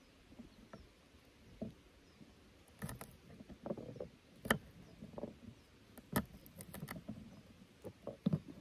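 Knife and utensils knocking and clicking irregularly against a wooden cutting board as vegetables are cut and handled, with a few sharper clicks now and then.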